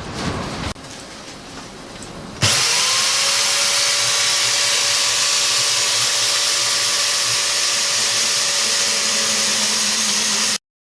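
Electric metal-cutting saw starting up with a quick rising whine, then running steadily with a loud hiss and a steady hum. Before it starts there are a few light clicks and knocks. The sound cuts off abruptly near the end.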